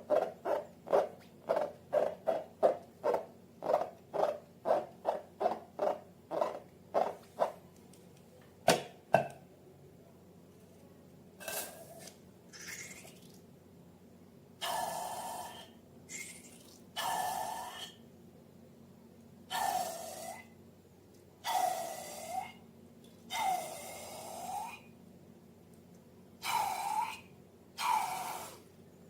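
Slime being worked by hand: quick wet squelches, about three a second, for the first seven seconds, a sharp click near nine seconds, then a series of longer hissy squelches of about a second each.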